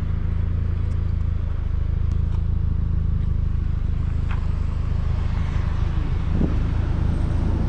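Car engine idling steadily with an even, low hum.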